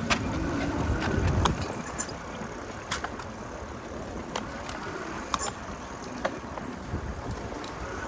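Street sounds heard from a moving bicycle: a low rumble for the first second and a half, then a steady hiss with scattered sharp clicks and rattles.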